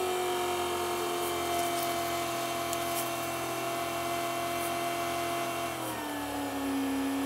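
A steady machine-like whine with a clear pitch and a row of overtones, like a motor running. Its pitch sags slightly in the first second and drops a step about six seconds in.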